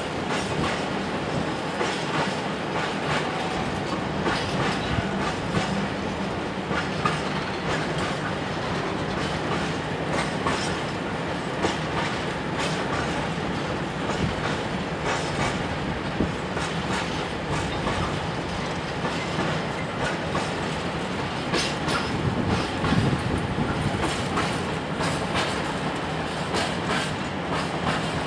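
Freight train of tank wagons rolling past: a steady rolling noise of wagon wheels on the rails, with many irregular clicks as the wheels pass over rail joints.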